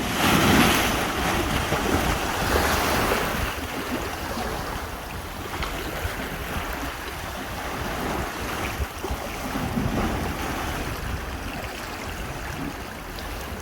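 Ocean waves crashing and surging through rocks, with wind buffeting the microphone. The loudest surges come in the first three seconds, with another about ten seconds in.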